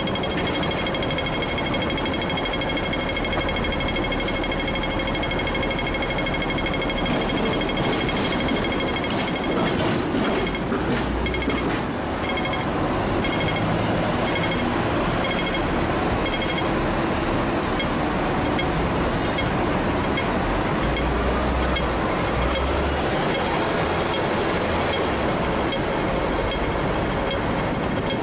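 Audible pedestrian crossing signal ticking rapidly, then switching about ten seconds in to a slow, even pulse about once a second, over steady traffic and tram noise.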